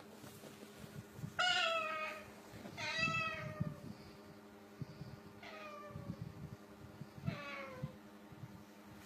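Four drawn-out meows, each sliding down in pitch, the first two the loudest, with soft low knocks in between.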